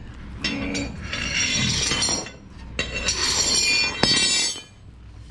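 Metal tools clinking and scraping as they are handled, in two bouts, with a sharp clink about four seconds in.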